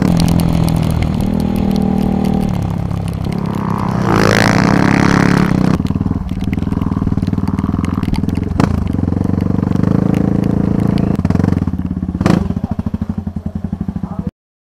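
Honda CRF230F dirt bike's single-cylinder four-stroke engine running under throttle, heard from a helmet camera, with a burst of rushing noise about four seconds in. Near the end it drops to a slow putter as the bike slows, and the sound cuts off suddenly.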